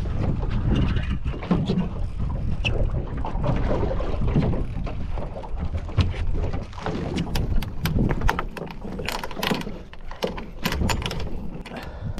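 Wind buffeting the microphone on a small boat at sea, a gusty low rumble. In the second half it is joined by a quick run of sharp clicks and knocks.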